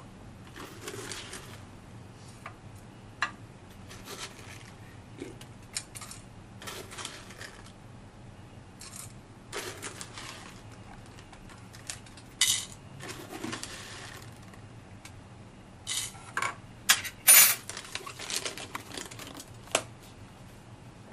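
A spoon and a metal tea canister being handled while dry tea leaves are spooned into plastic cups: scattered clinks, scrapes and rustles, with a cluster of louder clatters near the end.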